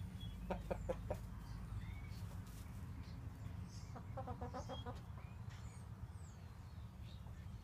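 Jersey Giant chickens clucking softly: a few short clucks about half a second in, then a longer run of clucks around four seconds in, over a steady low rumble.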